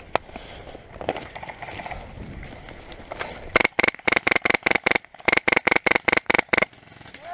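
Airsoft gun firing a rapid string of shots, about five a second for about three seconds, starting about halfway through.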